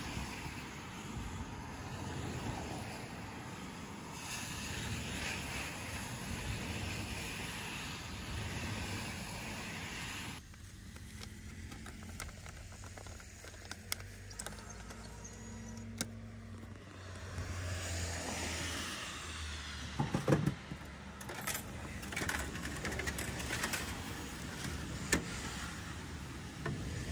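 Steady outdoor background noise. It drops abruptly to a quieter stretch where a street vending machine is used: a banknote is fed into its bill acceptor, a low steady motor hum runs for several seconds, and there are scattered sharp clicks, with a short cluster of louder knocks partway through.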